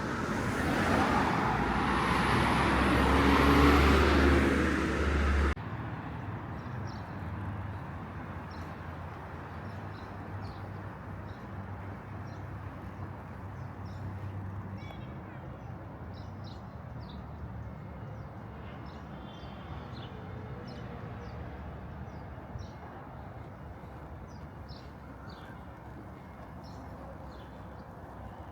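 A motor vehicle passing close with a low engine rumble, growing louder and then cut off abruptly about five seconds in. After that, quieter outdoor ambience with small birds chirping repeatedly.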